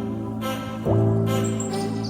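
Background instrumental music: sustained chords, moving to a new chord a little under a second in.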